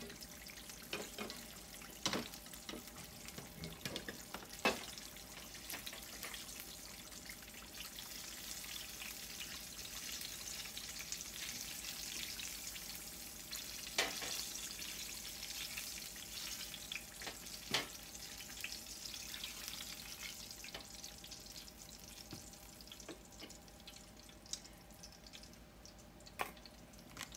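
Breaded green tomato slices sizzling in hot peanut oil in a cast-iron skillet, a steady hiss. A few sharp metallic clicks come through as the slices are lifted out, and the sizzle thins out near the end.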